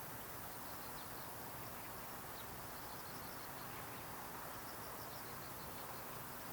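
Insects chirping in repeated short pulsed trills over a steady outdoor background hum.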